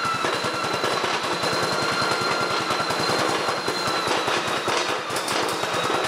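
Small petrol engine running steadily with a fast, even beat, belt-driving a Fisher & Paykel Smart Drive washing-machine motor used as a generator. Over it are a steady high whine and the crackle of an electric arc drawn from the generator's output onto a tin can.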